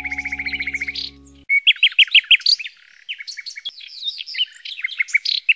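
Canary singing: fast rolled trills and quick, varied chirping phrases. A low held chord sounds under the song for the first second and a half, then cuts off suddenly.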